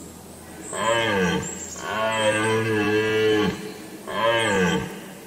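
Red deer stag roaring in the rut: three deep bellows, the middle one the longest, each dropping in pitch as it starts.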